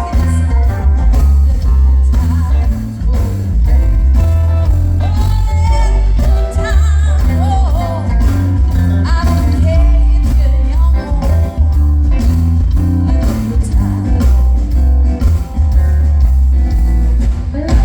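Live blues band playing, with heavy bass, drums and electric guitar, and a woman singing over it, mostly in the middle stretch. The music stops abruptly at the very end.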